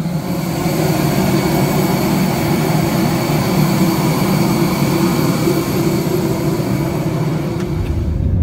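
Jet airliner turbines whining steadily: several high, unchanging whine tones over a rushing hiss. Near the end this gives way to a deep low rumble.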